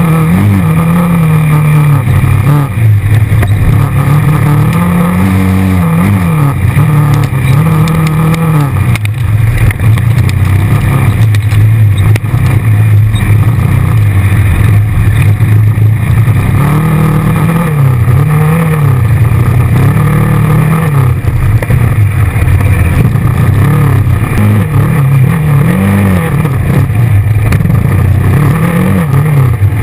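ATV engine running loud, its pitch rising and falling again and again as the throttle is opened and eased off over the trail.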